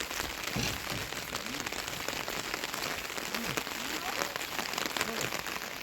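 Rain pattering steadily on a surface, with many separate drop ticks and a few short pitched plinks scattered through it.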